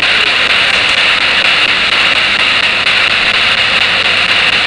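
Spirit box scanning through radio stations: a loud, steady hiss of static with no intelligible voice coming through.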